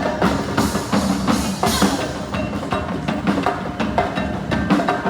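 Live marching band playing: snare and tenor drums beating a busy rhythm under held notes.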